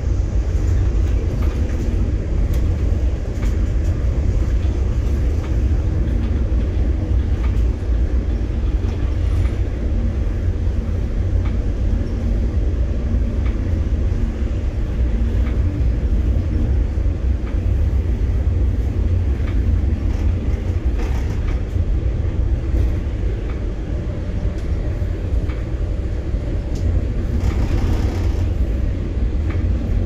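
Steady low rumble of a moving public-transport vehicle, with faint scattered clicks.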